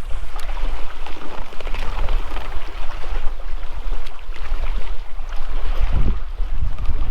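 Wind buffeting the microphone with a steady low rumble, over water splashing and lapping against a kayak on open lake.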